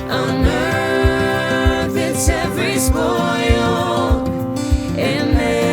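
Background song: a sung vocal with vibrato over a steady drum beat.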